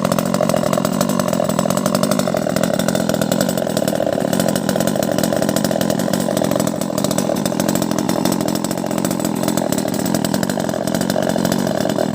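Two-stroke engine of a 258 top-handle chainsaw running steadily at speed, cutting off abruptly at the end.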